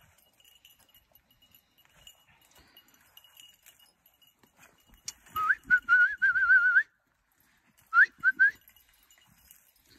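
A person whistling to call a hunting dog: one long warbling whistle, then three short rising whistle notes a second later.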